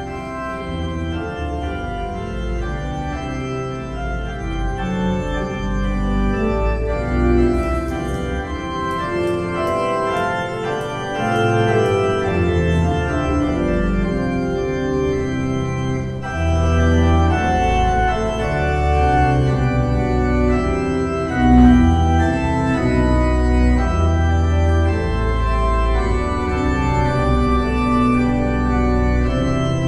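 Church organ playing the recessional: sustained chords over deep bass notes that change every second or two.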